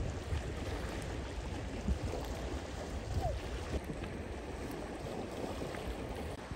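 Lake water lapping and splashing against granite shore rocks, with wind rumbling on the microphone.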